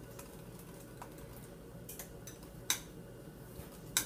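A few light clicks of a metal utensil knocking against the bowl while egg whites and sugar are stirred over a hot water bath, the sharpest two in the second half. A low steady hum runs underneath.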